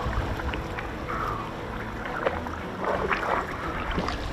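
Sea water sloshing and splashing against shoreline rocks, with wind buffeting the microphone as a low rumble and a few sharp knocks.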